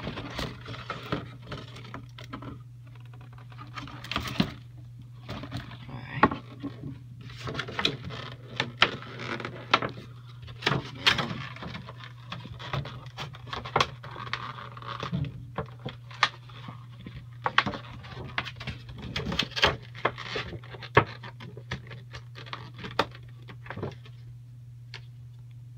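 Close handling noise: irregular clicks, knocks and rustles of small plastic and cardboard items being picked up and moved, over a steady low hum. The handling thins out near the end.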